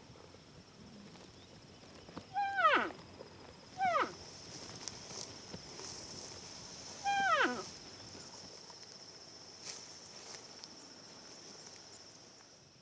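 Elk calling: a few short calls, each starting high and dropping sharply in pitch, a couple about two and a half seconds in, another near four seconds and one past seven seconds.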